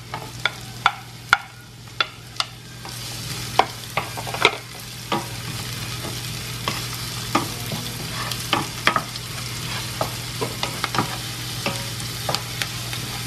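Chopped onion and garlic sizzling in hot oil in a nonstick sauté pan, with a wooden spoon knocking and scraping against the pan as it is stirred. The sizzle grows louder about three seconds in.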